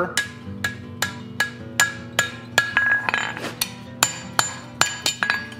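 Hand hammer striking red-hot round steel bar on an anvil, a steady run of blows about two and a half a second, each with a bright metallic ring from the anvil; hot-forging the spur of a fireplace poker.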